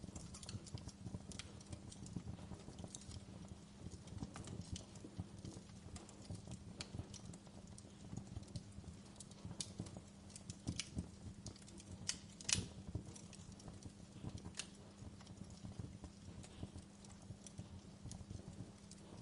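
Wood fire crackling in a fireplace: irregular sharp pops and snaps, one louder pop about two-thirds of the way in, over a steady low rumble.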